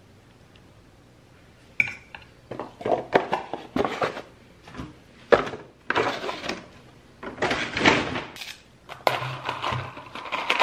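Kitchen clatter of a fork, a plate and takeout containers as food is moved onto the plate: irregular clicks, knocks and scrapes, with the crinkle of a clear plastic takeout lid being handled. It starts about two seconds in.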